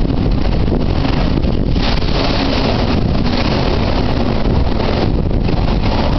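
Typhoon wind blowing hard in gusts across the microphone, with the rumble of storm waves.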